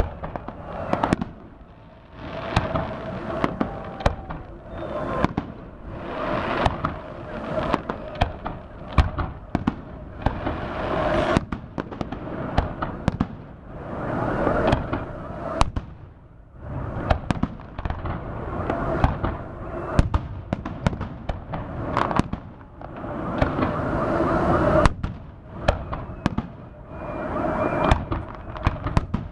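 Fireworks display: shells bursting in quick succession with crackling, in waves that swell and fade every few seconds.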